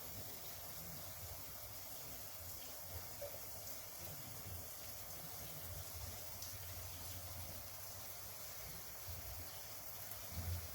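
A river running high after floods: a steady, faint rush of flowing water, with a low rumble that comes and goes.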